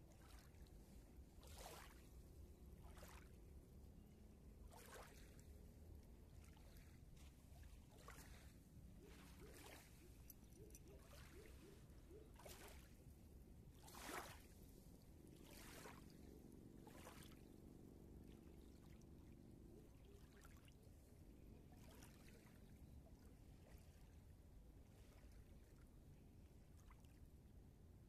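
Faint, gentle lapping of small river ripples at the shoreline: soft little splashes every second or two, the loudest about halfway through, over a low steady rumble.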